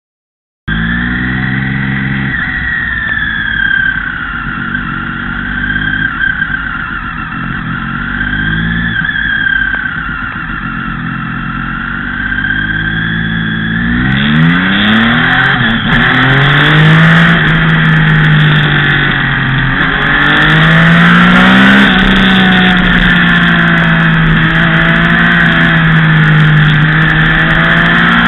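675cc three-cylinder sport bike engine heard onboard. It runs at low revs for the first dozen seconds, then about halfway accelerates hard through a series of rising revs and upshifts. It settles into a steady high-revving note with wind rush, climbing again near the end.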